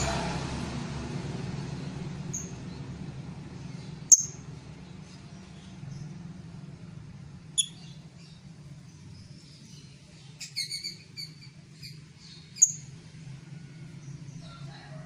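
Lovebird chirping: single short, sharp high chirps a few seconds apart, with a quick run of chirps about ten seconds in, over a faint steady low hum.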